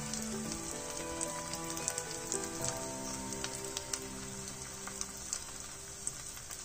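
Semolina uttapam batter sizzling on a hot oiled tawa, a steady sizzle with scattered small crackles. Soft background music with held notes plays underneath.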